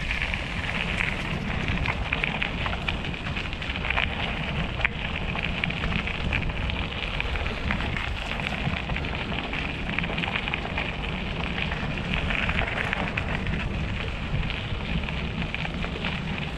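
BMX bike rolling along a trail, its tyres crackling steadily over dirt and grit, with wind rumbling on the microphone.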